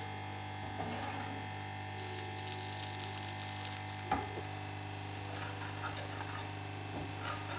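Egg omelette sizzling faintly in oil on a flat pan while a metal spatula scrapes and cuts through it, with a couple of sharp clicks of the spatula against the pan about four seconds in. A steady low hum runs underneath.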